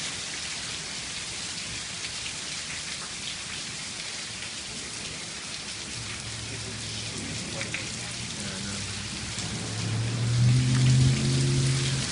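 Hail and heavy rain coming down in a steady hiss, with scattered sharp ticks of stones striking. A low steady hum comes in about halfway through and swells loudest for a second or so near the end.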